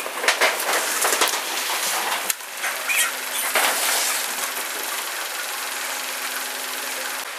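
Clattering knocks for about the first two seconds, then a steady hiss with a low, even hum of an engine running at idle.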